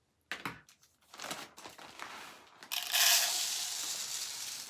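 Plastic rice bag crinkling as it is handled, then, about three seconds in, dry rice pouring from the bag's cut corner into a glass cup as a steady hiss that gradually grows quieter.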